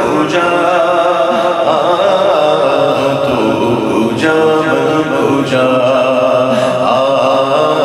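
Unaccompanied male voices chanting a naat, with long held, wavering notes over steady lower voices.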